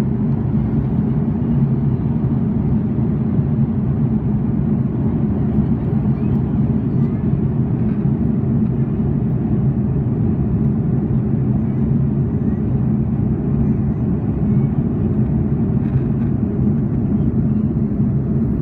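Steady in-flight cabin drone of a KC-30A (Airbus A330 MRTT) tanker, heard inside the passenger cabin: engine and airflow noise with a steady low hum, unchanging throughout.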